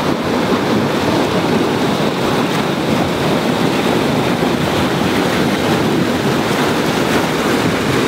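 Waterfall rushing: a loud, steady noise of falling water.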